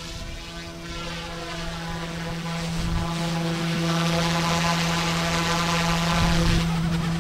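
OMPHOBBY M2 electric RC helicopter in flight: a steady whine from its motor and rotors, with overtones that glide up and down as it manoeuvres and passes. Gusty wind is heard on the microphone.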